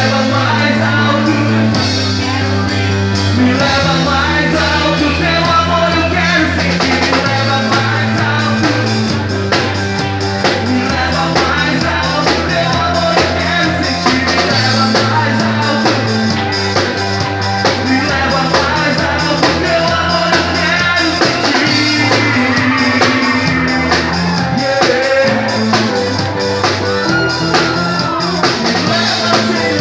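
A band playing a rock-style song, with drum kit, bass guitar holding long notes that change every second or two, and guitar.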